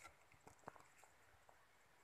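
Near silence, with a few faint short ticks.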